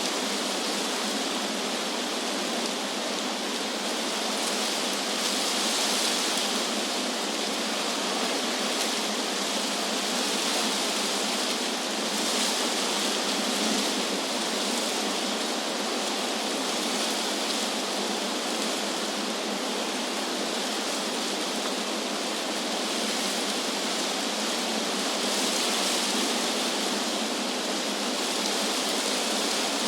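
Wind blowing through trees, a steady rushing hiss of leaves that swells and eases every few seconds.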